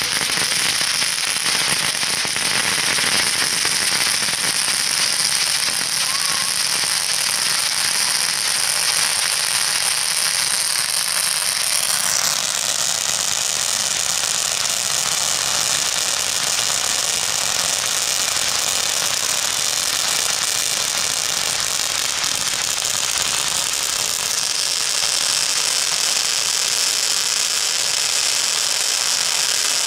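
Dragon Fireworks "Extreme Fountain" ground firework spraying sparks: a loud, dense crackling hiss that runs on steadily, changing tone about twelve seconds in and again near the end.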